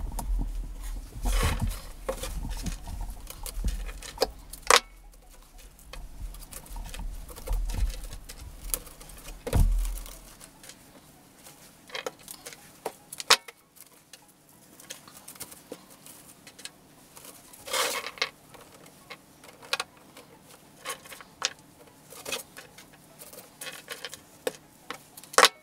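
Hands working small sprigs of rose hips and ornamental crabapples into a dried grapevine wreath: irregular rustling of twigs, berries and leaves with scattered sharp clicks and taps. A low rumble of handling runs under the first half.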